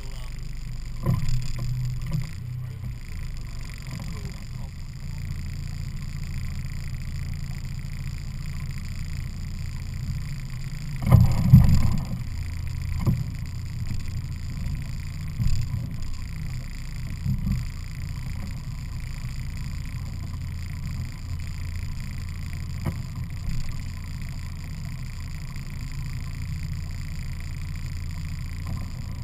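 Evinrude 50 hp E-TEC two-stroke outboard motor running steadily under way, a constant low drone. A few short thumps rise over it, the loudest about eleven seconds in.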